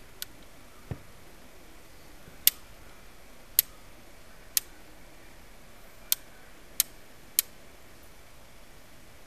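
A Bosch PHO 3100 electric hand planer being handled while switched off: about seven sharp, irregularly spaced clicks and taps, over a faint steady hiss. The motor is not running.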